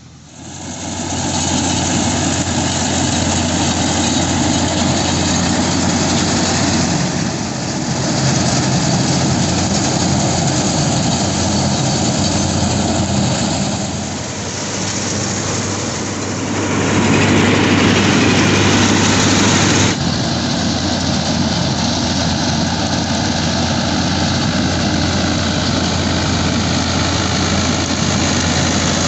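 Tractor engine running steadily under load while driving a straw reaper through wheat stubble: a constant low engine hum under a broad rushing noise from the machinery.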